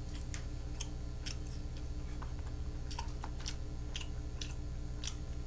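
Eating at a desk: irregular faint clicks of chopsticks against a plastic takeout tray of tteokbokki, with chewing, over a steady low hum.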